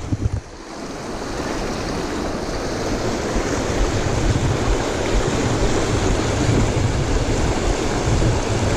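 Shallow, fast river water rushing over rocks in a riffle: a steady, loud rush. It is briefly muffled just after the start, then comes back up and holds steady.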